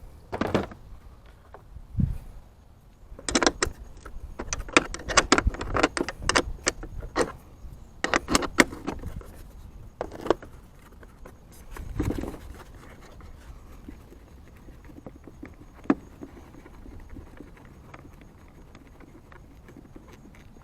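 Hand tools working the hood latch mounting nuts and bolts: a run of quick metallic clicks and clinks lasting several seconds, then a few single knocks, after which it fades to faint background.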